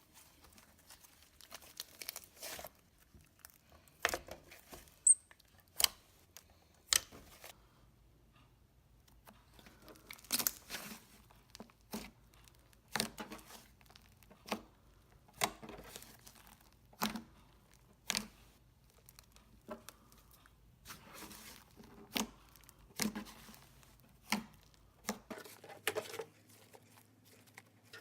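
Butter slime being squished, poked and pulled apart by hand, giving short sticky pops and crackles about once a second.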